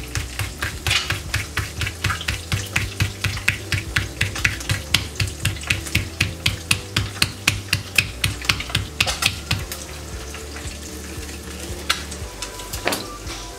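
Hands patting a ball of tortilla dough flat on a plastic sheet by hand: a quick, even run of soft slaps, about four a second, that stops about ten seconds in. A brief scuff follows near the end.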